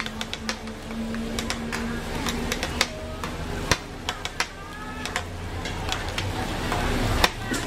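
Metal ladle and spatula clinking and tapping against a large wide frying pan, a run of irregular sharp clinks, over faint voices in the background.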